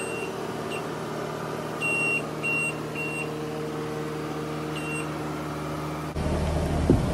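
New Holland loader's engine running steadily as its boom lifts an attachment, with a series of short, high beeps from the machine's alarm, clustered about two to three seconds in and once more near five seconds. The engine sound cuts off suddenly about six seconds in.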